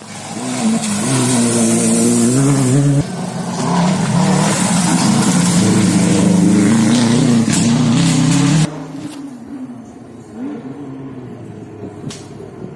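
Rally car engine revving hard as the car drives through a water crossing, throwing up spray; the engine note drops briefly about three seconds in, then climbs again. Near nine seconds the loud sound cuts off suddenly, leaving a fainter engine.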